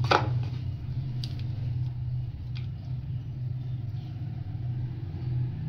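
A steady low mechanical hum, with faint soft sounds of hands kneading dough in a steel bowl and a short knock right at the start.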